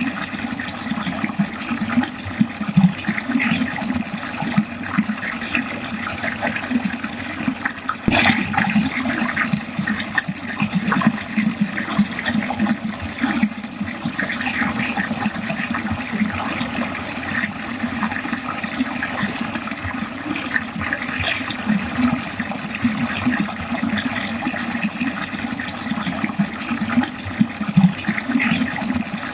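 Water running steadily down a drain, with a continuous gurgling and splashing flow and a brief sharper splash about eight seconds in.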